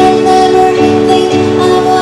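A song played on plucked strings, with held notes and chord changes about every half second.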